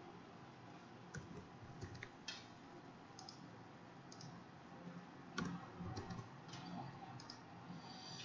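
Faint, irregularly spaced clicks of a computer mouse and keyboard, the loudest about five and a half seconds in.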